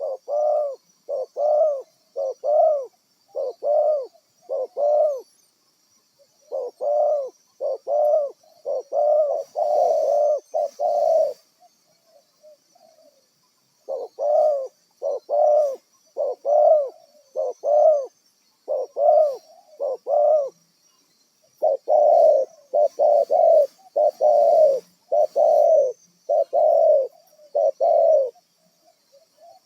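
Spotted doves (tekukur) cooing: runs of short, rounded notes that rise and fall in pitch, about one and a half a second, broken by brief pauses. A faint, steady, high-pitched whine runs underneath.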